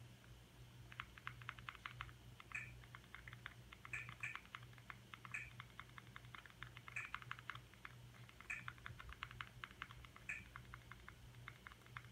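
Faint, rapid clicking of a Fire TV Stick remote's direction buttons stepping across the on-screen keyboard, with a different-sounding click from the select button seven times as letters are entered, over a faint steady low hum.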